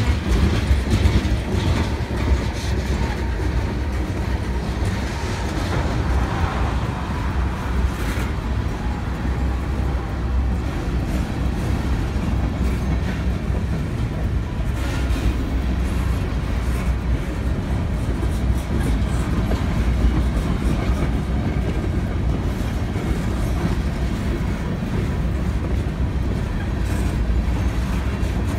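Freight train of tank cars and covered hopper cars rolling past at a steady speed: a steady low rumble of steel wheels on rail, with scattered wheel clacks.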